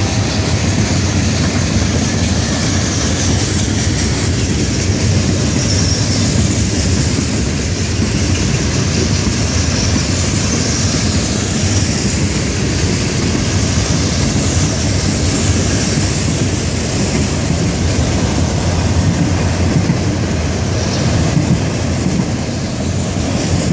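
Florida East Coast Railway freight train rolling steadily past at speed: hopper cars, then autorack cars, with wheels running on the rails in a continuous rumble.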